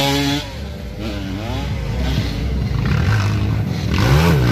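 Dirt bike engines running at a motocross track, with brief snatches of voice over them.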